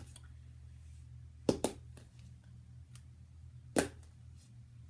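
A plastic Hi-Liter highlighter marker flipped onto a book, making sharp taps as it lands and falls flat: a quick double tap about a second and a half in, fainter ticks after it, and another sharp tap near four seconds.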